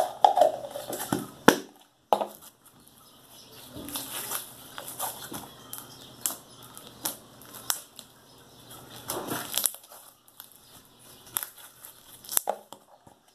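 Blue foam-bead slime being squeezed and worked in the hand, giving irregular crackling clicks and pops, with louder plastic tub handling near the start.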